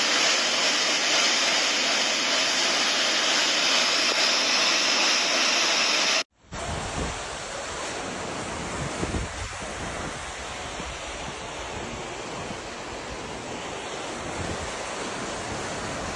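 Storm water noise from flash flooding: a loud, steady hiss of heavy rain and rushing water. About six seconds in it cuts abruptly to a quieter, rumbling wash of water with wind buffeting the microphone.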